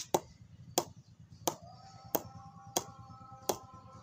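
Red leather cricket ball bounced repeatedly on the face of a new SS VA 900 English willow cricket bat: six sharp knocks about two thirds of a second apart. The bat is not yet fully knocked in.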